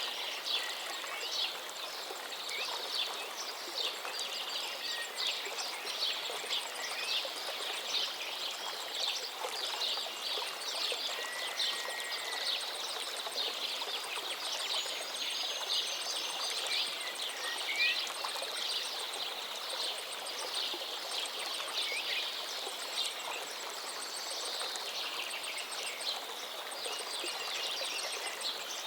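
Birds chirping and singing over the steady rush of a flowing river or stream, with many short, quick calls throughout.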